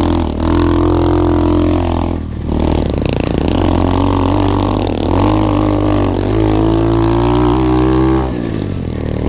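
SSR 125 pit bike's single-cylinder four-stroke engine under way on a dirt trail, the throttle chopped briefly twice early on, then the revs climbing for a few seconds before falling off near the end.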